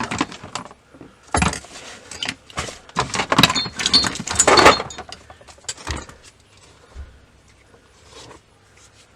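Metal hand tools clattering and clinking in irregular bursts, loudest about three to five seconds in, then dying away.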